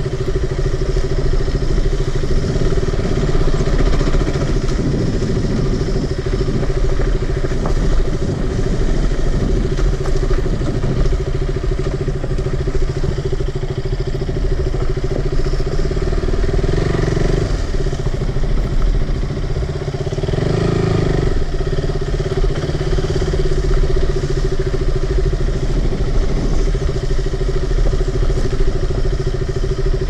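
Motorcycle engine running at a low, steady pace while the bike rolls down a bumpy dirt trail. The engine note briefly swells twice near the middle.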